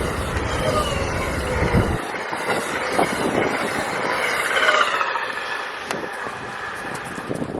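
Passenger train passing at speed, a loud rush of wheel and air noise. The deep rumble stops suddenly about two seconds in, leaving a hiss that fades toward the end.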